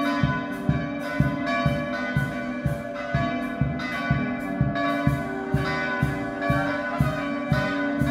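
Several church bells pealing, struck in quick steady succession at about three or four strokes a second, their tones overlapping and hanging on.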